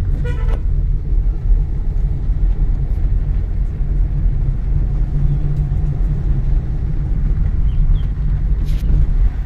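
Car engine and road noise rumbling steadily, heard from inside the cabin while driving. A short car-horn toot sounds right at the start.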